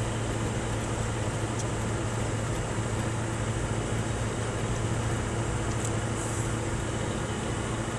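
Scania R620's V8 diesel engine running at a steady, unchanging pitch, heard as a low drone from inside the truck's cab while driving.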